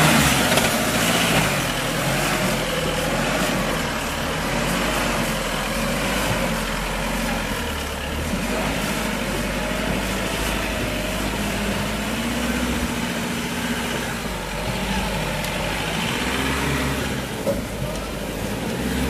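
Iveco EarthCruiser 4x4 camper truck's diesel engine running at low revs as it crawls over rocks, its pitch rising and falling a little with the throttle.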